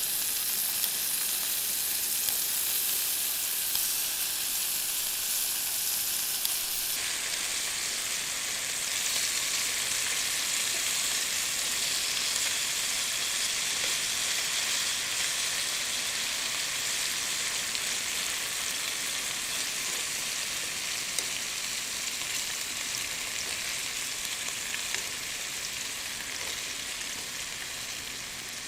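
Wood campfire burning with a steady hissing crackle and a few sharper pops. The sound changes abruptly about seven seconds in.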